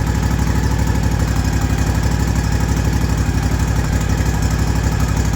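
Kawasaki FR691V V-twin engine on a zero-turn mower idling with an even, steady beat and no surging, after its carburetor was cleaned and its fuel filter replaced.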